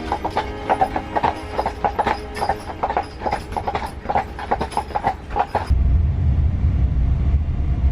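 Horse hooves clip-clopping, several strikes a second. The clopping cuts off abruptly near the end and gives way to a steady low rumble.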